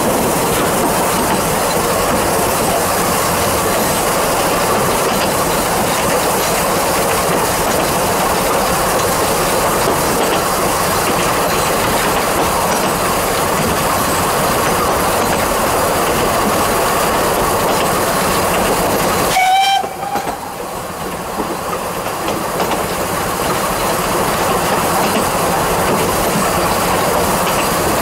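Vale of Rheidol narrow-gauge steam train running, heard from on board: a steady loud rumble and rattle of wheels on rail. About two-thirds of the way through, a brief whistle sounds for about half a second. The running noise then drops quieter for a couple of seconds before building back up.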